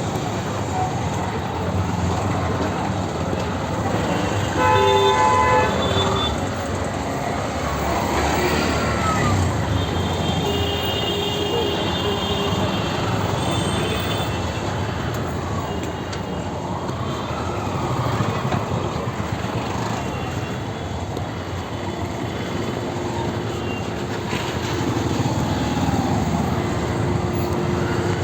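Busy street traffic: a steady rumble of vehicles with several horns honking, the loudest one about five seconds in and a long held horn near the end.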